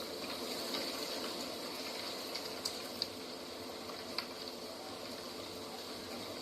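Steady outdoor nature ambience: a continuous rushing hiss with a faint steady high-pitched band over it, and three short sharp clicks near the middle.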